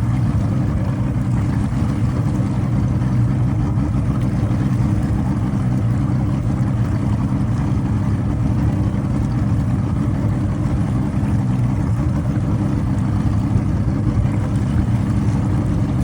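Engine running steadily at one speed with a misfire.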